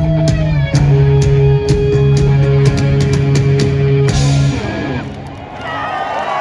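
Live rock band playing loud through stadium speakers: drum kit hits with held bass and electric guitar notes, the music breaking off about four seconds in. Crowd cheering and whooping then rises near the end.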